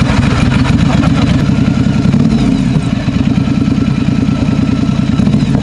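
Ducati Scrambler's air-cooled L-twin engine running at idle, a steady, rapid low pulsing just after being started.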